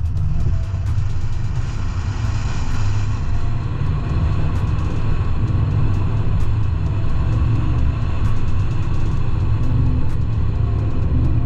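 GMC Sierra AT4 pickup with a 6.2L V8 and Borla cat-back exhaust, driving through deep snow: a steady, loud low engine and exhaust rumble.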